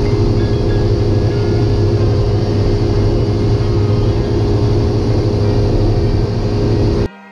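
Cessna 172's piston engine and propeller droning steadily at cruise power, heard inside the cockpit with rushing air noise. It cuts off abruptly near the end as music begins.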